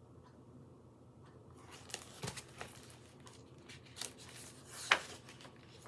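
Pages of a picture book being turned and handled: soft paper rustles and light taps starting about a second and a half in, with one louder rustle near the end.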